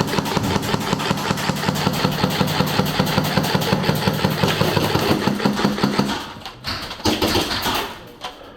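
Electric airsoft gun firing a long full-auto burst: a rapid, even rattle of shots over the whine of its motor, stopping about six seconds in, followed by a couple of short bursts.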